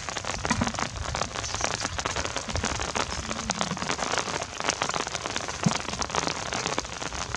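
Steady rain: a dense patter of many small drops.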